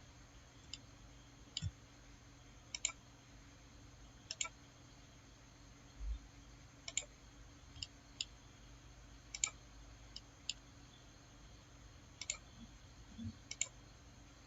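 Computer mouse clicking, about a dozen faint, irregularly spaced clicks, some in quick pairs, as edges are picked one after another, over a low steady room hum.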